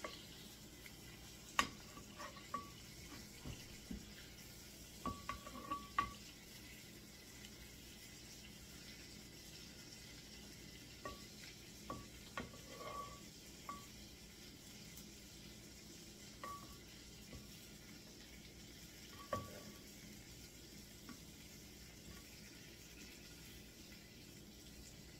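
A utensil clicking and tapping against a glass baking dish as chicken legs are turned over in it, some taps leaving a short ring. The taps come in scattered clusters, thinning out after the first half.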